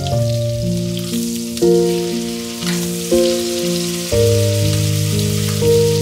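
Background music, a melody of held notes changing about every half second, over the steady sizzle of chicken pieces frying in butter in a cast-iron skillet.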